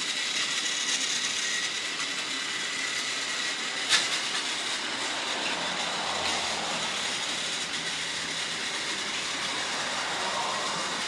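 Battery-powered Trackmaster toy engine (Peter Sam) running along its plastic track, its small motor and gearing giving a steady whir with a faint high whine. A single sharp click about four seconds in.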